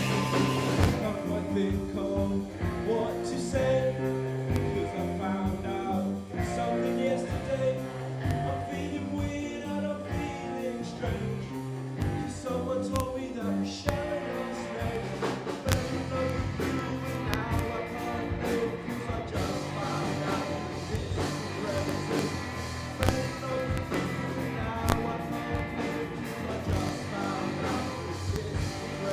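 A rock song played by a band with singing, guitar and drums.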